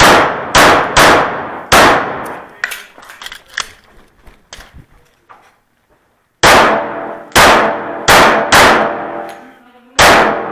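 Sig Sauer Emperor Scorpion 1911 pistol in .45 ACP firing shots, each echoing off the walls of the covered bay. Four shots come in quick succession, then a pause of about four seconds with only faint clicks, then five more shots.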